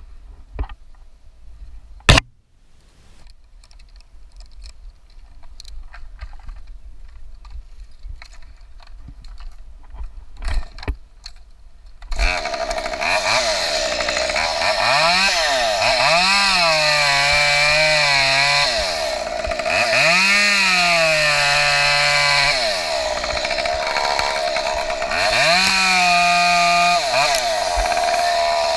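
A sharp knock about two seconds in and scattered light clicks, then about twelve seconds in a chainsaw starts running loudly, its pitch rising and falling again and again as it is throttled up and down while cutting willow acacia wood.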